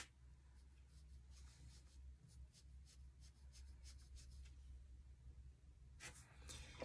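Faint, soft scratching of a watercolor brush stroking across watercolor paper as a light wash of pink is laid down, over a low steady room hum.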